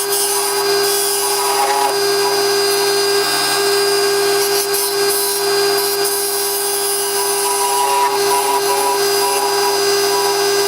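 Wood lathe running steadily, its motor hum under the scratchy hiss of a turning tool taking light cuts on the spinning wood.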